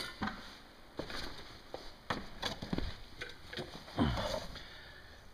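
Handling noise: a few light knocks and rustles as the cloth-covered camshafts are handled, with a duller thump about four seconds in.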